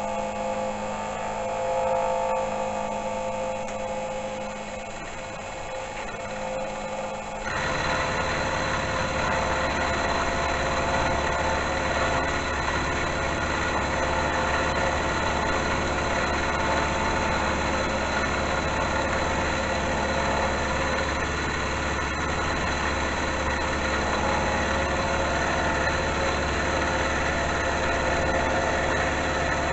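Small metal lathe running with its power feed engaged, taking a 1 mm turning cut: a steady motor hum, and about seven and a half seconds in the sound suddenly becomes louder and noisier and stays steady.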